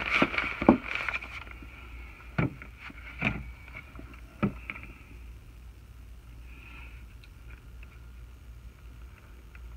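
Strikemaster 40-volt lithium auger battery packs being handled and set down on a desk: a few hard plastic knocks in the first half, then only faint handling.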